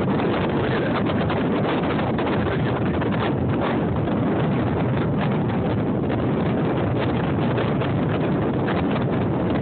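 Strong wind buffeting the phone's microphone over the steady rush of heavy, rough surf churning around a pier.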